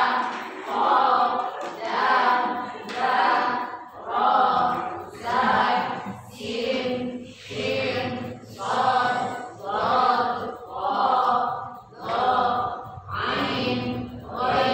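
A group of voices chanting Arabic letter syllables together in a steady, rhythmic recitation, about one syllable a second.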